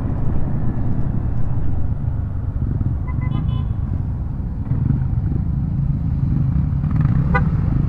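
Motor scooter running at riding speed, a steady low rumble of engine and road noise. A short horn toot sounds about three seconds in and another, sharper beep a little after seven seconds.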